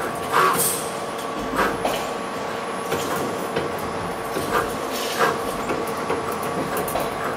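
Motor-driven wire uncoiler running: a steady machine hum with irregular short metallic squeaks and clanks.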